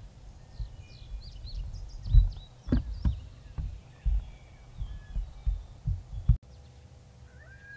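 Irregular low thumps on the microphone with a few bird chirps. Near the end, a coyote howl from an electronic predator call begins, rising and then holding a long high note, sent out to draw coyotes in.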